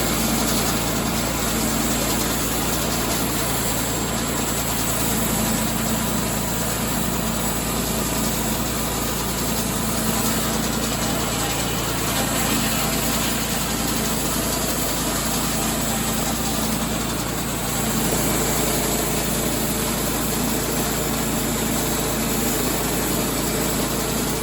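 A sawmill runs steadily as its blade slices a thin board, about 1/8 inch thick, off an oak log. The sound is a loud engine hum under a dense whine of sawing, and it cuts off abruptly near the end.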